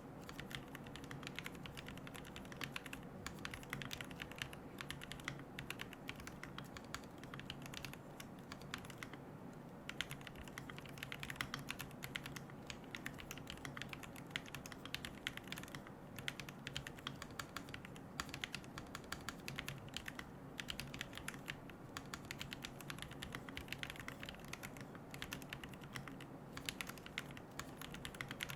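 Continuous typing on a QK75N mechanical keyboard with Gateron Moon Landing switches, a carbon plate, no foam and MilkyWay Poker keycaps: a dense, fast clatter of keystrokes with a short lull about nine seconds in.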